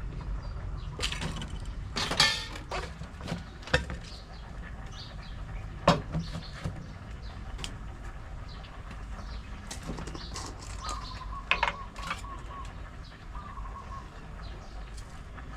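Scattered knocks and brief scrapes of hands-on kitchen work, a few sharp ones standing out, over a steady low rumble, with faint bird chirps in the background.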